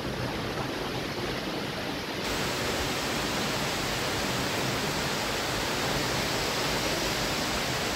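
Torrential rain pouring down, a dense, steady hiss. About two seconds in it turns brighter and slightly louder.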